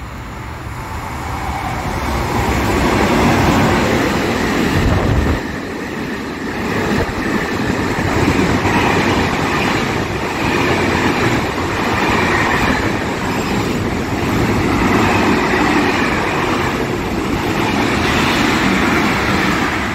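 Container freight train passing at speed along a station platform: the rumble and rattle of its wagons rolling by. It builds over the first few seconds as the train arrives, dips briefly about five seconds in, then runs on steadily as the wagons go past.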